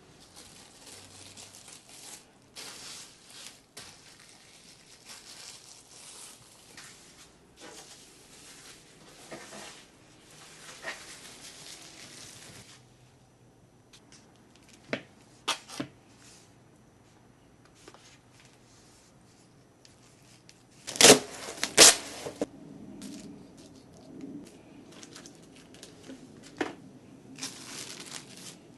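Plastic food packaging crinkling and rustling as groceries are handled, broken by a few sharp clicks and two loud knocks in quick succession about two-thirds of the way through.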